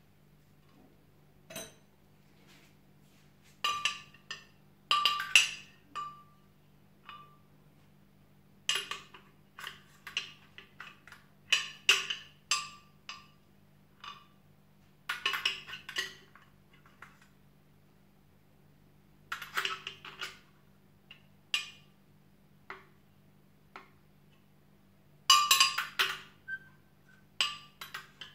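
Clinks, clicks and knocks of a jug blender's jar being handled, in short clusters every few seconds.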